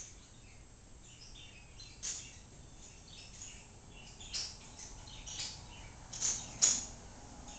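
A Boston terrier sniffing in short, sharp puffs, about five of them, the loudest near the end.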